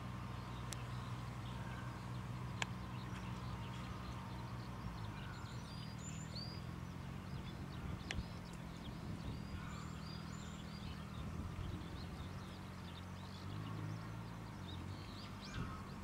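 Small birds chirping and twittering in short, high notes, thickest from about five seconds in, over a steady low hum. A few sharp clicks stand out, the loudest near the start.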